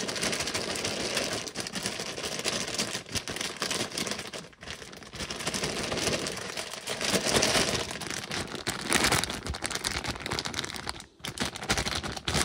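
Whole corn kernels rattling and shifting inside a plastic grain spawn bag as it is shaken and massaged, the bag crinkling: mixing the freshly injected inoculant through the grain so it doesn't pool at the bottom. A dense, continuous clatter that briefly drops out about four and a half and eleven seconds in.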